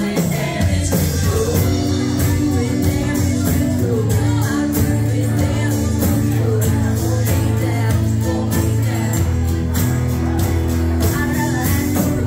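Live band playing a song: a lead vocal over acoustic guitars and drums with a steady beat.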